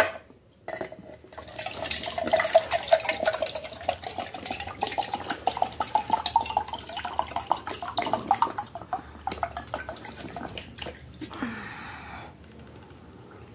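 Water poured from a plastic bottle into a plastic mug, a glugging stream whose pitch rises steadily as the mug fills, stopping about ten seconds in.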